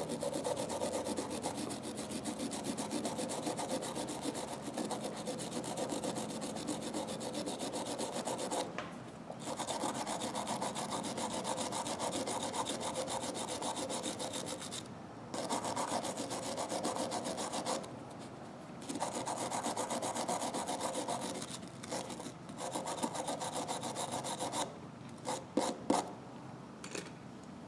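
A small hand brush scrubbing the small steel internal parts of a ratchet wrench, a rapid back-and-forth scratching that runs in long stretches broken by several short pauses, with a few light clicks near the end.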